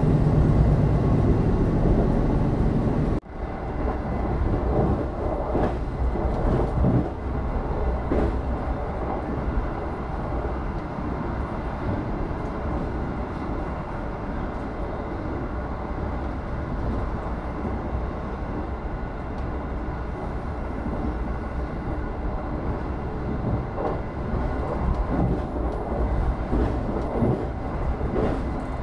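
Argo Sindoro passenger train running on the rails: a loud, steady rumble that breaks off suddenly about three seconds in and comes back somewhat quieter, with a few faint clicks over it.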